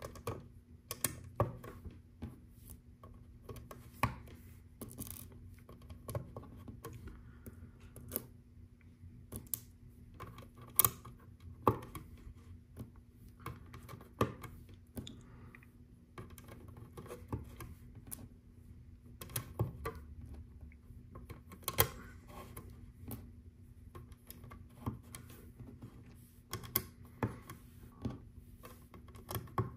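Small round LEGO plastic tiles being pressed onto the studs of a mosaic baseplate: irregular sharp plastic clicks, a few at a time, with light clatter of loose pieces being picked up.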